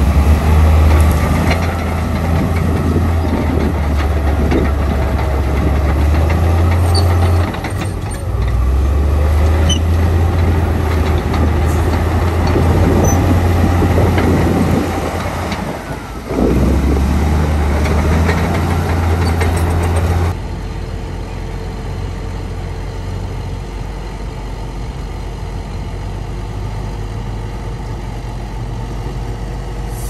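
Heavy diesel earthmoving machinery at work: a loud, low engine drone with rattles and knocks, dipping briefly twice. About two-thirds of the way through it changes abruptly to a quieter, steadier engine sound.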